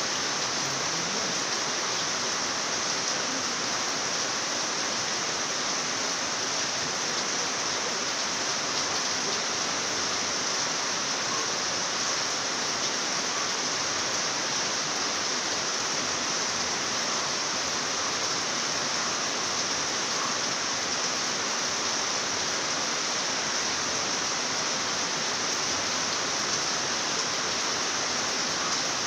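Rain falling steadily: an even, unbroken hiss with no single drops or changes standing out.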